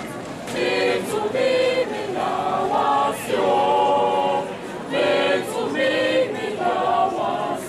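A mixed choir of boys and girls singing together in harmony, in short phrases with brief breaks between them.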